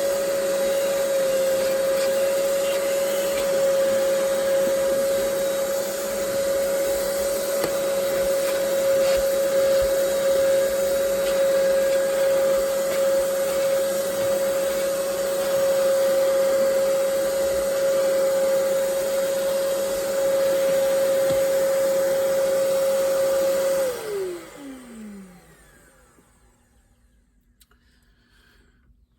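Ridgid 3-gallon wet/dry shop vac running steadily with a strong high whine while vacuuming a car floor. About 24 seconds in it is switched off, and the whine falls in pitch as the motor spins down.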